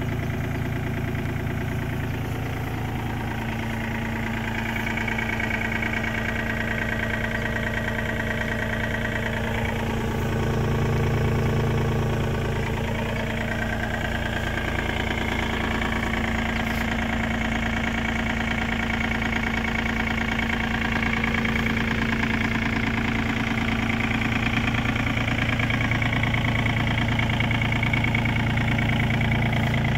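2007 Komatsu PC35MR-2 mini excavator's diesel engine idling steadily, briefly a little louder about a third of the way in.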